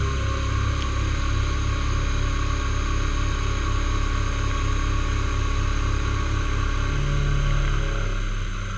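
Milling machine running as its end mill cuts a metal block: a steady low motor hum with a faint regular pulsing and a higher steady whine. Near the end the sound shifts and a tone slides down in pitch.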